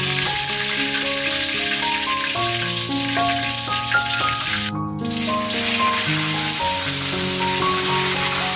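Whole tilapia deep-frying in hot oil in a wok, a steady sizzle, under soft instrumental background music of held melodic notes. The sizzle drops out briefly about five seconds in, then resumes.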